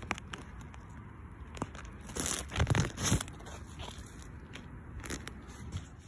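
Zucchini leaves and stems rustling and crackling as they brush against the phone, with scattered clicks and a louder burst of rustling about two to three seconds in.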